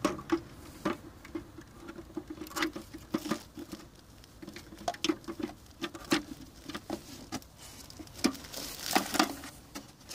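Plastic car tail light housing being handled: irregular light clicks, taps and rubbing of hard plastic as the lamp assembly is turned in the hands and its clips are lined up.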